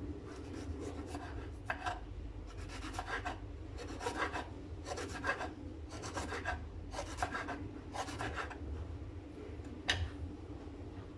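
Rhythmic rasping, rubbing strokes, about one a second, followed by a single sharp click near the end.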